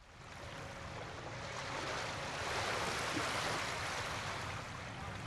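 Outdoor wind and water noise at the shore of shallow open water: a steady hiss with a low rumble that grows louder over the first two seconds or so.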